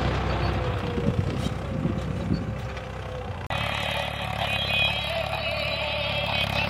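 Tractor engine running steadily while ploughing, a low, even drone. Its sound changes abruptly about halfway through.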